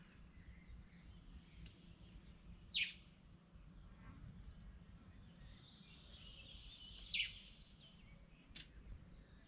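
Faint outdoor ambience: a low rumble under a thin steady high tone, with a few short high bird chirps, three of them standing out, and some fainter twittering in between.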